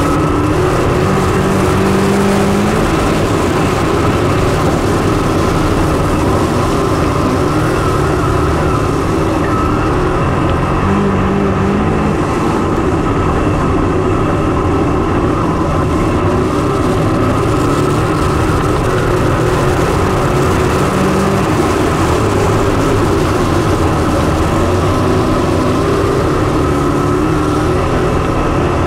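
Dirt late model race cars' V8 engines running hard on the track, their pitch rising and falling repeatedly.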